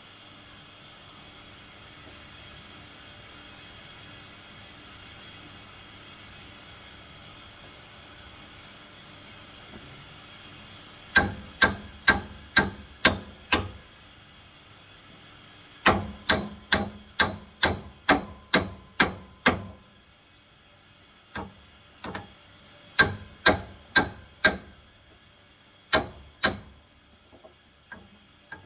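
Hammer blows on steel machinery parts, coming in runs of evenly spaced, ringing strikes about two a second with short pauses between runs, after a stretch of faint steady hiss.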